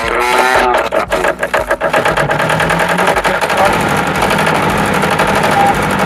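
Generator engine cranked by its starter, which is bridged with pliers at the battery-fed terminals. It catches about two seconds in and settles into a steady run.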